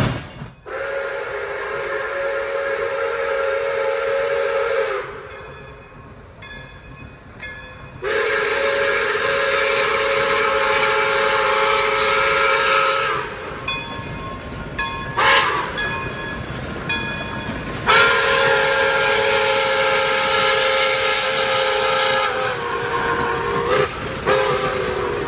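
Steam locomotive whistle blowing three long chord-like blasts over a hiss of steam, each about four to five seconds, with short toots between them. The pitch drops slightly near the end.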